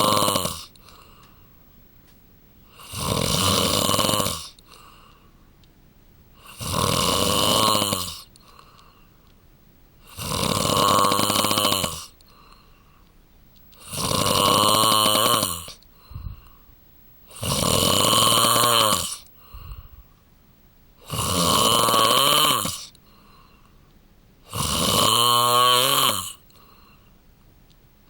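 A man snoring in his sleep: a snore about a second and a half long on each breath, roughly every four seconds, with quiet gaps between.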